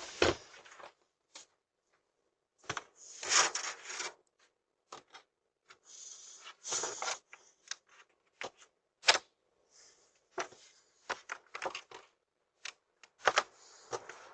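Irregular handling noises: short rustles, rubs and clicks in scattered bursts, with silent gaps between, picked up by a doorbell camera's microphone.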